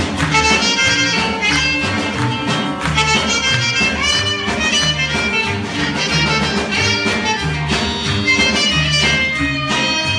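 A band playing an instrumental piece of Sonoran regional music: a steady bass line with melody instruments over it.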